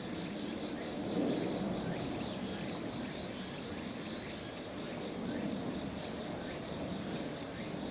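Steady outdoor background noise: a low, even rumble with a faint high steady hum above it and no distinct animal calls.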